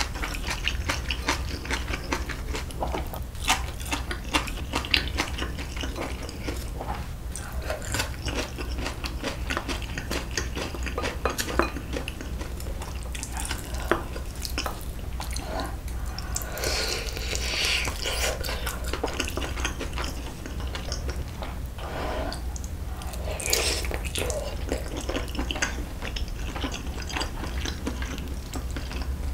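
Close-up eating sounds: metal chopsticks clicking against a bowl and a stainless pan, with wet chewing of saucy braised beef short ribs and glass noodles. A couple of longer wet, saucy swells come about halfway through and again later, over a steady low hum.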